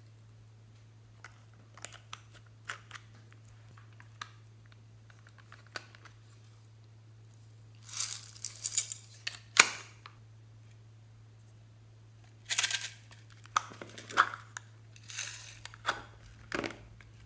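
Small plastic objects being handled: a few light clicks, then about eight seconds in a burst of rattling as small yellow plastic confetti is shaken out of a plastic flower-shaped mould. Later comes a longer run of clacking and rustling from plastic moulds. A steady low electrical hum lies underneath.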